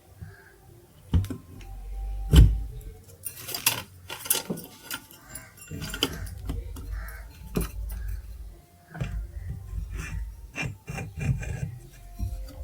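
Small metal parts clinking and knocking at irregular intervals against handling and rubbing noise, one sharp knock standing out about two seconds in.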